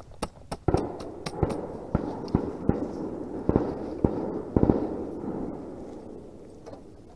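Camp gear being handled and packed: irregular sharp cracks and knocks over a crackling rustle, dying away over the last couple of seconds.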